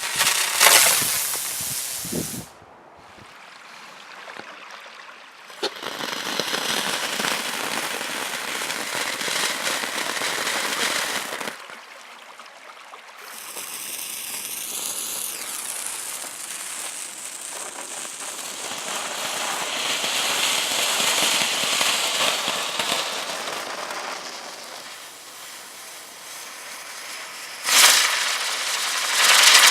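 Consumer fireworks going off: long spells of hissing, crackling spray, a wavering whistle about fourteen seconds in, and loud bursts at the start and again near the end.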